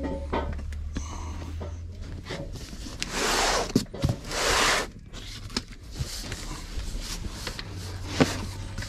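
A heavy cardboard box being turned and handled, with two drawn-out scrapes of cardboard rubbing about three and four seconds in, and scattered light knocks and taps.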